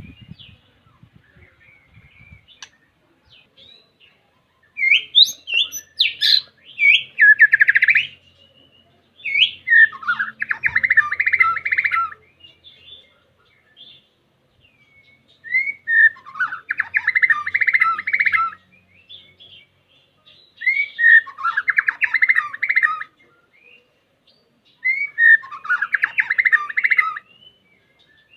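White-rumped shama (murai batu) singing its challenge song to call out a rival: five loud phrases a few seconds apart, each opening with a couple of clear whistled notes and running into a fast, rattling trill.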